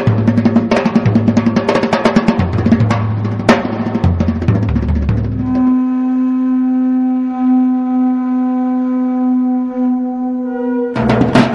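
Background music: a drum-driven passage with a stepping bass line that drops out about halfway into a single long held note, with the drums returning near the end.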